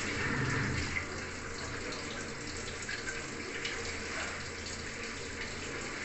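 LG top-load washing machine's jet spray showering water down onto the clothes in the drum: a steady splashing hiss with a low hum underneath. The spray is there to dissolve leftover detergent powder during the wash.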